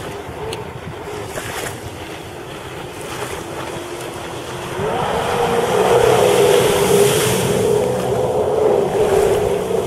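Sea-Doo GTi jet ski engine droning as the ski runs across the water. About five seconds in, the engine revs up and gets louder as the ski carves a tight turn, with a rush of spray.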